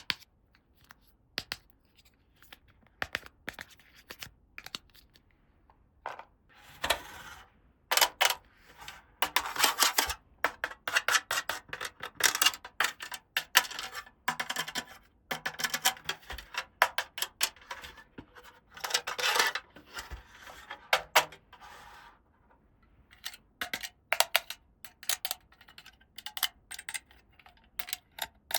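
Small plastic toy pieces handled and set down, giving many sharp clicks and taps, with denser rustling and scraping from about a quarter of the way in until past the middle.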